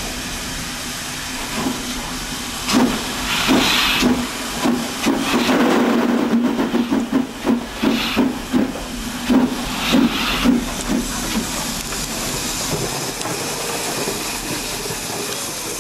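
Henschel steam tank locomotive HC 5 pulling away: a steady hiss of steam escaping at the cylinders, with rhythmic exhaust chuffs about two a second from a few seconds in until about eleven seconds, then the hiss alone as it rolls past.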